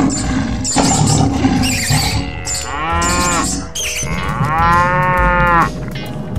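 Cartoon cow sound effect: two long moos, each rising then falling in pitch, the second a little longer. Before them comes a couple of seconds of busy, noisy sound effects.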